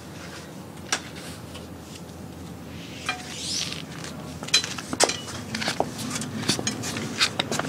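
Footsteps of 7-inch Pleaser Adore-708 platform high heels, sharp clicks and knocks that come thick and fast in the second half, with a short hiss about three seconds in.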